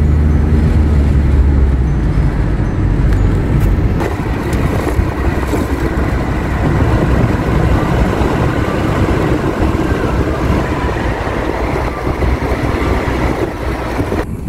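Car driving along a road: a steady low rumble for the first couple of seconds, giving way to a broader rushing of wind and tyre noise that runs on until it cuts off suddenly near the end.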